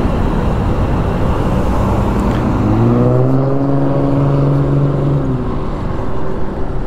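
Wind and road noise of a motorcycle ride. About two and a half seconds in, a vehicle engine note rises, holds steady for a couple of seconds, then fades.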